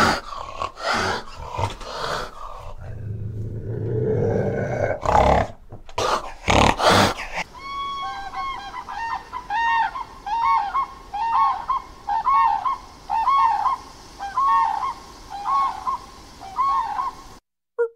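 Animal calls: for the first seven seconds or so, rough, noisy calls with three loud harsh blasts between about five and seven seconds in; then a regular series of about a dozen short pitched calls, each rising and falling, roughly one every 0.7 s, which stops abruptly just before the end.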